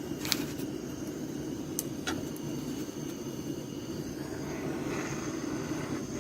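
Handheld gas torch burning with a steady low rush of flame as it heats a brass boiler. A few light clicks sound near the start and about two seconds in.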